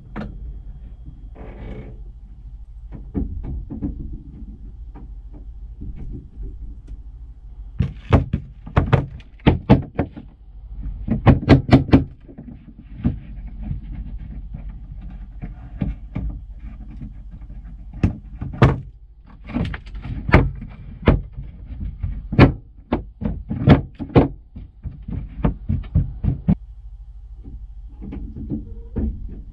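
Irregular knocks, clicks and clunks of a gloved hand working at a truck's frozen windshield-washer nozzles on the open hood, over the steady low hum of the idling engine. The knocks come in clusters, busiest about a third of the way in and again through the second half.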